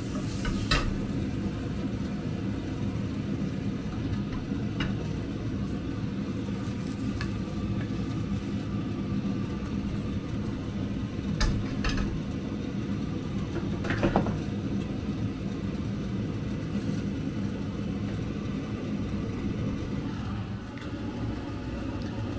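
Steady hum of a running kitchen appliance motor, with a few sharp clicks scattered through it, the loudest about 14 seconds in.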